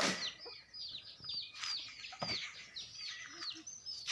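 Birds chirping continuously, a rapid run of short, high, falling notes several times a second. A single sharp crack right at the start is the loudest sound, and a fainter click comes near the end.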